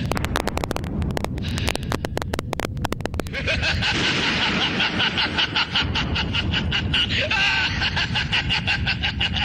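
Dramatic sound-effects track played loud over the hall's loudspeakers for a staged fight: a rapid run of sharp percussive hits over a low rumble, giving way about three seconds in to a sustained shrill, fluttering sound.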